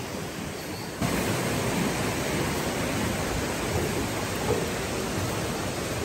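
Rushing river water pouring over boulders, a steady noisy rush that gets louder about a second in.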